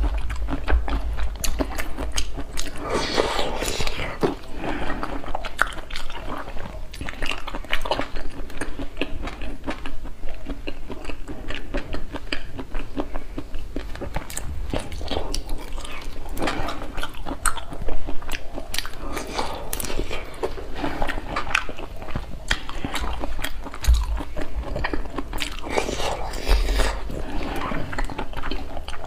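Close-miked eating of raw shrimp marinated in chili-soy sauce: wet chewing, sucking and lip smacks, with short crunches and clicks as the shells are bitten and peeled.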